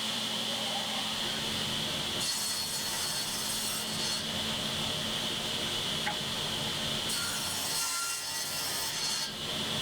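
A woodworking power tool running steadily with a constant whine, cutting wood twice, each cut about two seconds long and adding a harsh high hiss over the motor.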